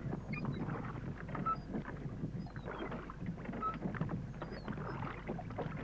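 A small boat being paddled: irregular splashing and knocking of water against the hull, with short high chirps now and then.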